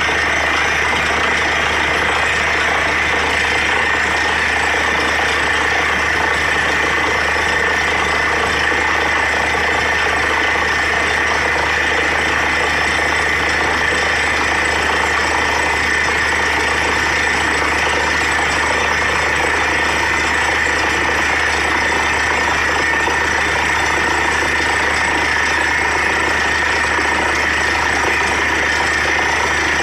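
Borewell drilling rig running steadily while drilling: a loud, constant machine noise with a steady high tone in it and a low hum beneath.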